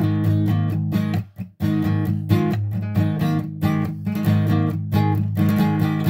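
Acoustic guitar with a capo being strummed in a steady rhythm of chords, with a brief gap a little over a second in.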